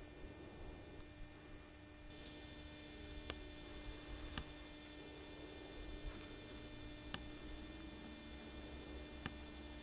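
Faint steady hum with a thin high whine that comes in about two seconds in, and a few sharp ticks scattered through.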